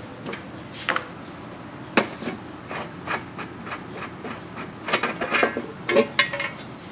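Hands working a motorcycle's side cover off the frame: irregular clicks, knocks and rubbing of the panel, with one sharp knock about two seconds in and a quicker run of clicks and scrapes near the end.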